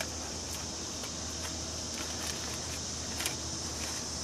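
Steady high chirring of insects, with faint rustles and a few light clicks as fresh lovage leaves are spread by hand on a sun oven's tray.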